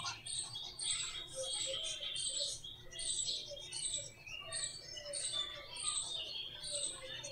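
Birds chirping in quick, repeated high notes, about two a second.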